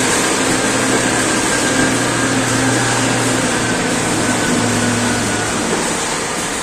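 Bagging plant machinery running: a loud, steady mechanical noise with a low hum that fades in and out.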